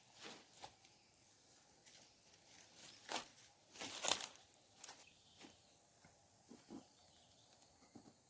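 Irregular rustling and crunching of dry vegetation, loudest about three and four seconds in.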